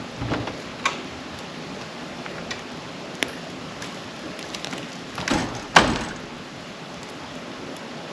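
Campfire burning with a steady hiss and irregular sharp crackles and pops, the loudest a little before six seconds in.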